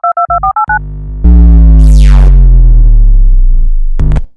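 Synthesizer intro sting: a quick run of electronic blips, then a loud, deep held bass note with a falling sweep across it, and a few short stabs near the end.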